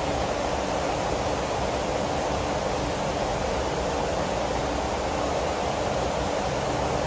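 Rainstorm: rain falling steadily, an even, unbroken hiss.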